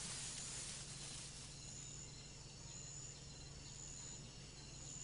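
Faint rainforest ambience: a low hiss with a thin, high insect tone that comes and goes in notes of under a second, repeating several times from about a second and a half in.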